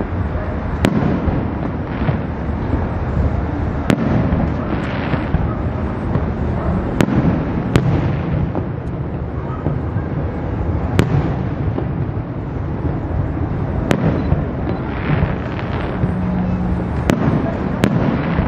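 Aerial fireworks shells bursting in a display: about ten sharp cracks at irregular intervals over a steady background rumble.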